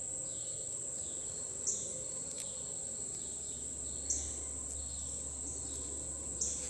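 Steady high-pitched drone of insects, with a short louder note breaking in about every two and a half seconds.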